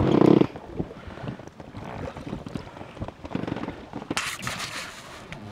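Wind buffeting the microphone, with scattered small knocks of handling aboard an inflatable boat; a brighter rush of noise sets in about four seconds in.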